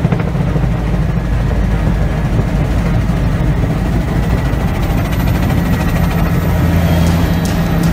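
Helicopter in flight, heard from inside the cabin: a loud, steady engine and rotor drone with a thin, steady high whine above it.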